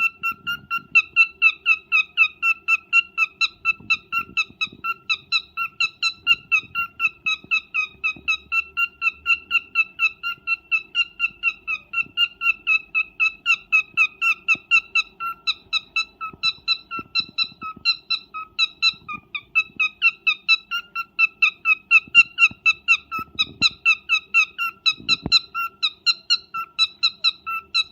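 Cockatiel calling over and over in short, evenly spaced chirps, about three a second, steady in pitch: the call the uploader presents as its mating call.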